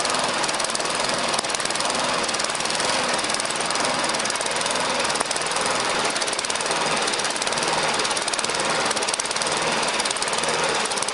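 Tecumseh engine of a Toro walk-behind lawnmower running steadily, with a rapid firing beat. It is running at a low setting and runs poorly there, which the owner puts down to old gas and a dirty carburetor.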